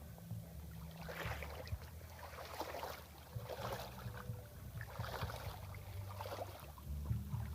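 Water splashing in a regular rhythm, about one splash every second and a bit, over a steady low hum.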